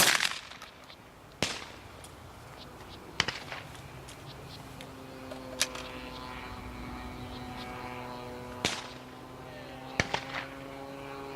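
A single shotgun shot at a thrown clay target, with a sharp report and a short echoing tail. Several much fainter clicks and knocks follow. A steady humming tone comes in about halfway through.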